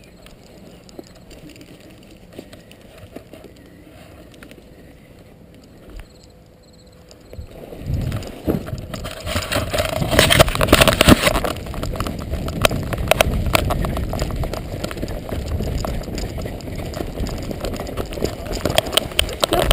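Faint outdoor background at first; then, from about seven and a half seconds in, loud close rustling, scraping and knocks of the camera being handled and moved, over a low rumble.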